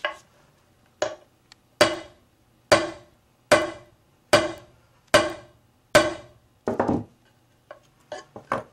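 A hammer striking a tungsten carbide ring held in pliers on a wooden cutting board: nine sharp blows, a little under one a second, each with a brief metallic ring. Near the end come a few lighter clicks as the ring is handled.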